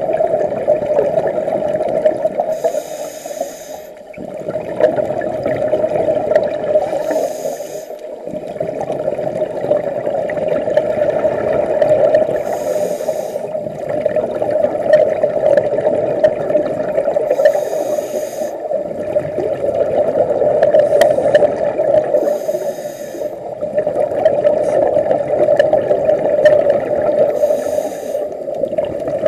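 Scuba diver breathing through a demand regulator underwater: a short hissing inhale about every five seconds, six times, with bubbling exhales in between, over a steady hum.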